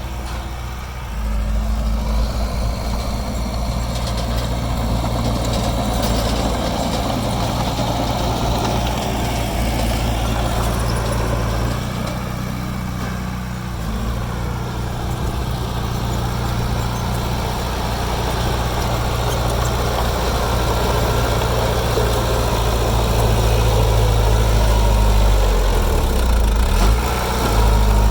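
Heavy diesel engine of earthmoving machinery running steadily, dipping slightly about halfway through and growing louder over the last few seconds.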